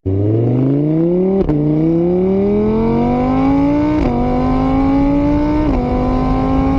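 A vehicle engine accelerating hard through the gears. Its pitch climbs steadily and drops at each of three gear changes, about one and a half, four and five and a half seconds in, then holds steady.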